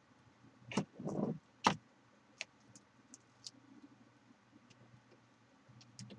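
A graphics card with a liquid-cooler pump block attached is moved and set down on a desk: a knock, a brief rustle, then a sharper knock. After that come a few light clicks and taps as the parts are handled, and a small knock near the end.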